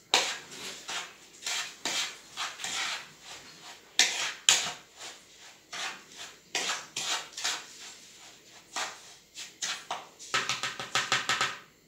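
Spoon stirring dry millet and sugar in a plastic bowl: repeated scraping strokes against the bowl with grains rattling, in a quick run of strokes near the end.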